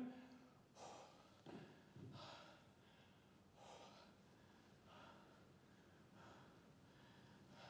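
A man breathing heavily and faintly, in slow, uneven breaths, as he sits spent on the floor.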